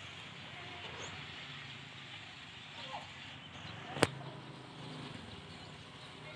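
Steady outdoor background noise with a low hum and faint high chirps, broken about four seconds in by one sharp click, the loudest sound here.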